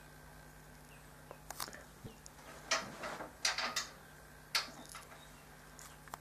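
Scattered light clicks and short scrapes from the telescope tube's side bearing discs settling onto the base's side bearing knobs as the tube is handled. The busiest part comes around the middle, with one sharp click a little after.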